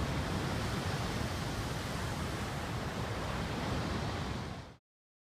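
Ocean surf: a steady, even rush of waves that fades quickly and cuts off shortly before the end.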